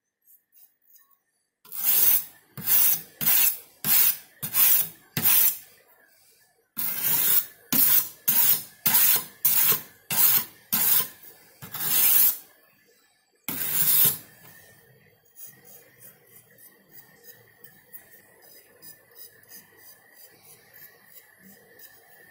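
Steel kitchen knife blade drawn back and forth across a diamond sharpening plate. There are two runs of rasping strokes at about two a second, a short pause between them, and one last stroke about fourteen seconds in. After that only faint scrapes and taps remain.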